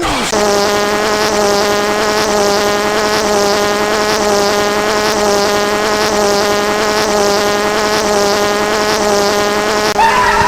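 A loud, steady buzzing drone at one fixed pitch, like an insect-buzz sound effect, holding unchanged for about ten seconds.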